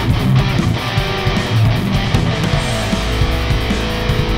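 Guitar-led background music soundtrack.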